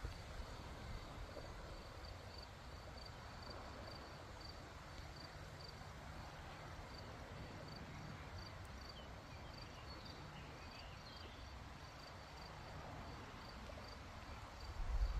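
Faint steady rush of a flowing river, with an insect chirping in an even rhythm of about two high chirps a second.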